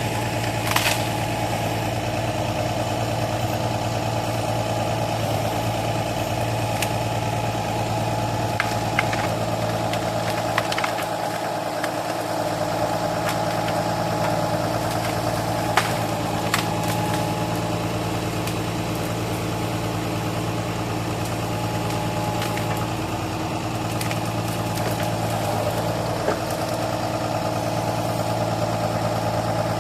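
Engine of a truck-mounted crane running steadily at idle, with a few sharp knocks over it, the sharpest about sixteen seconds in.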